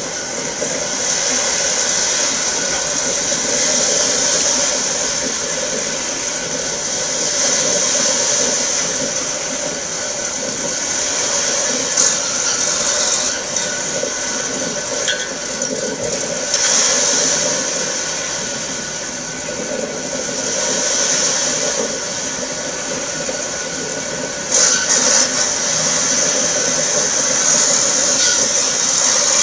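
A fishing boat's engine running steadily at speed as the boat approaches, mixed with a steady rush of water. There is a sharp click about twelve seconds in and another near twenty-five seconds, after which the sound gets a little louder as the boat draws close.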